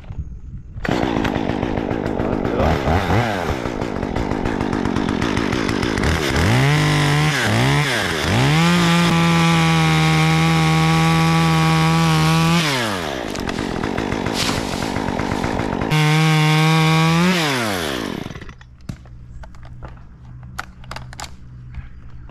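Top-handle chainsaw cutting into a eucalyptus (swamp gum) trunk. It runs from about a second in, is blipped up and down three times about six seconds in, and is held at high speed for about four seconds. It eases off, revs high again briefly, then winds down and stops about eighteen seconds in.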